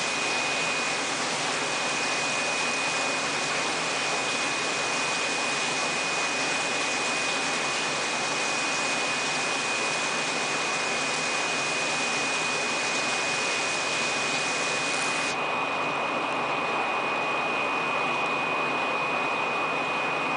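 Steady hiss with a constant high-pitched whine running through it; about fifteen seconds in, the hiss suddenly turns duller.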